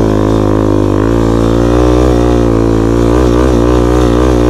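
Quad (ATV) engine running at fairly steady revs while being ridden, its pitch wavering slightly with the throttle.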